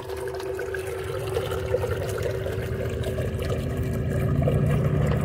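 Water pouring from a small solar-powered DC bilge pump, with a steady hum from the pump motor. A low rumble grows louder toward the end.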